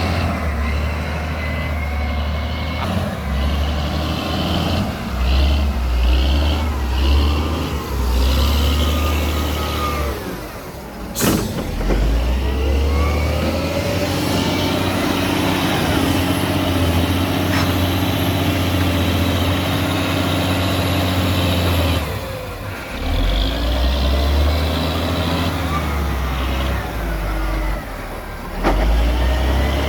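Heavy diesel engines of a large excavator and dump truck working, the low engine note surging and easing with load. A single sharp knock comes about eleven seconds in.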